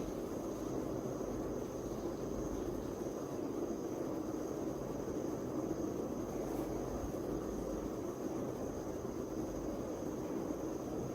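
Steady background noise, mostly low in pitch, with a faint high steady whine over it.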